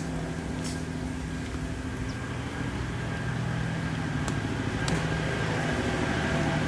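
A motor engine running with a steady low hum that slowly grows louder, with a few faint clicks.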